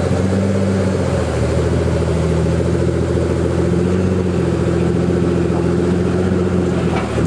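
Pagani Huayra's twin-turbo AMG V12 idling steadily, with an even, unchanging pitch.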